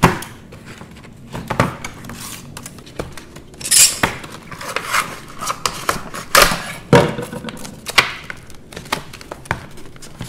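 Hard plastic blister packaging being cut with a knife and pulled apart: scattered clicks, scrapes and short swishes of stiff plastic.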